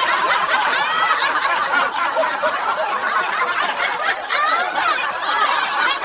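A group of people laughing together: overlapping chuckles and snickers running on without a break.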